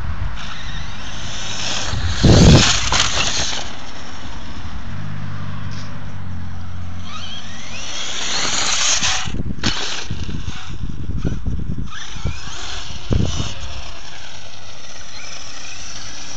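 Brushless electric motor of a 1/5-scale RC buggy whining up and down as it accelerates over dirt, over a steady rush of wind on the microphone. There is a loud rush about two seconds in and a rising whine as it passes close about eight seconds in, with scattered knocks from the chassis and tyres on the rough ground.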